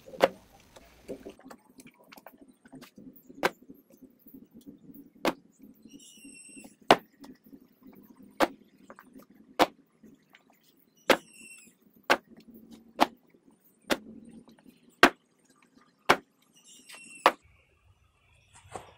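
Slab of wet clay being dropped again and again onto a canvas-covered table to stretch it, each drop a sharp slap, about fourteen in all at roughly one a second, over a low steady hum. Short high chirps come three times between the slaps.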